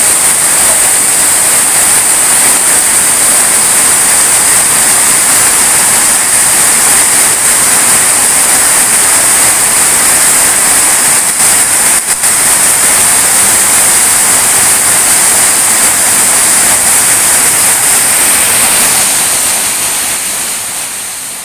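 Heavy downpour: the dense, steady hiss of rain falling on leaves and the ground, fading out near the end.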